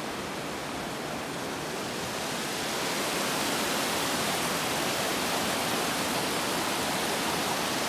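Steady rush of a mountain waterfall, a constant hiss of falling water that grows a little louder about three seconds in.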